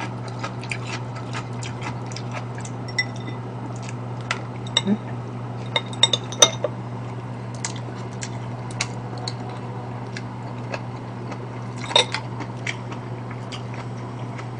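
Metal chopsticks and a spoon clicking and clinking against ceramic bowls while eating, in scattered single taps, a few with a short bright ring, over a steady low hum.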